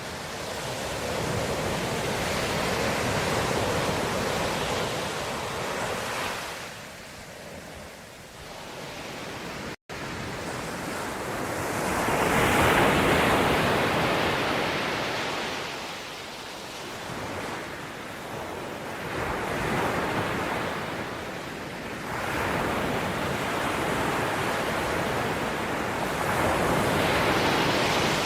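Ocean waves breaking and washing on a shore, the surf rising and falling in swells every few seconds, with a split-second dropout about ten seconds in.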